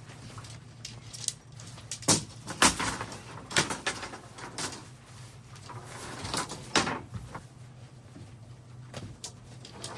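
A series of irregular knocks and clunks, about a dozen, over a steady low hum.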